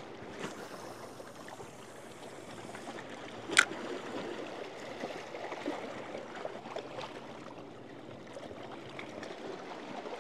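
Small waves lapping and trickling among shoreline rocks, a steady gurgling wash, with one sharp click about three and a half seconds in.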